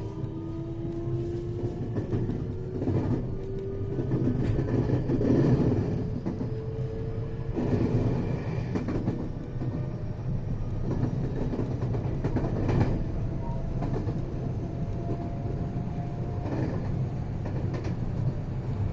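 Interior running sound of a 521 series electric multiple unit motor car under way: a steady low rumble of wheels on rail, with the motor whine rising slowly in pitch for the first several seconds as the train gathers speed. Knocks come at irregular intervals as the wheels pass over rail joints.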